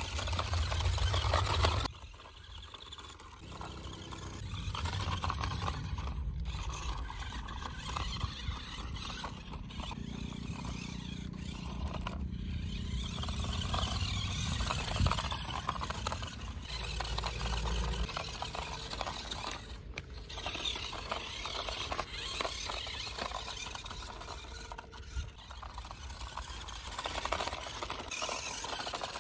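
1:16-scale toy RC monster truck driving over sandy dirt: its small electric motor and gearbox whirring while the plastic body and tyres scrape and rattle, louder for the first couple of seconds.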